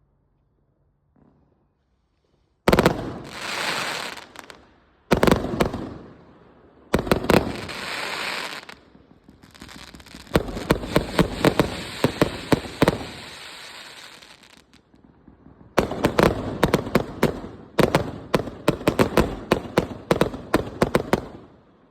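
Fireworks going off. After a quiet start come three separate loud bangs a couple of seconds apart, each trailed by hissing and crackling. Then come two long, fast strings of sharp bangs.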